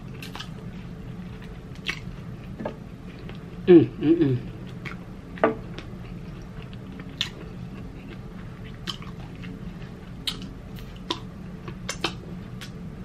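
Close-miked chewing of a fried sweet chili chicken wing, with wet mouth clicks and smacks scattered throughout. A short hummed voice sound about four seconds in is the loudest moment.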